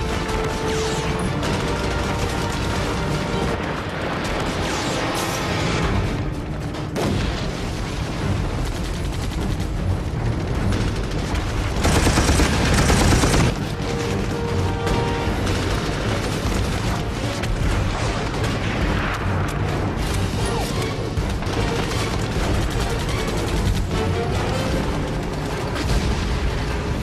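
Blank-fire gunfire from a battle reenactment: rifle shots, machine-gun bursts and booms over background music. About twelve seconds in comes a louder burst of firing lasting a second or so.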